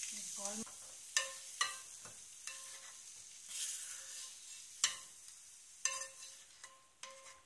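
A spatula scraping and knocking against a frying pan as fried potato cubes are tipped out into a glass bowl, several knocks leaving the metal pan ringing briefly. Under them, a faint sizzle from the still-hot pan fades away.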